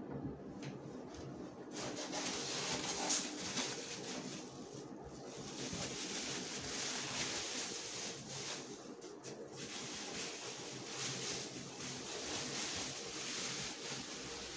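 Plastic bubble wrap rustling and crinkling as it is handled and pulled out of a cardboard box, in uneven swells with two short pauses.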